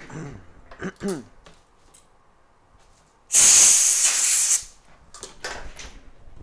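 A short, loud spray blast of about a second, hissing, used to clean dirt off the RAM chip and board before soldering.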